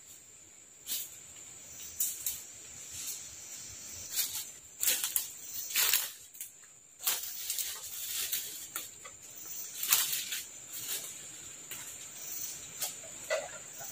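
Footsteps crunching through dry leaf litter and brushing past undergrowth, in irregular crackles that are loudest mid-way as the walker passes close. A steady high-pitched insect drone runs beneath.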